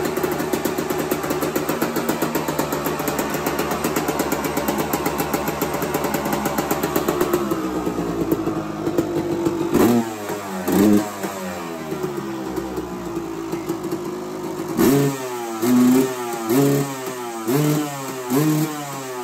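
Yamaha YZ250 single-cylinder two-stroke dirt-bike engine running steadily, then revved in short throttle blips from about halfway through, each rising and falling in pitch, several in quick succession near the end.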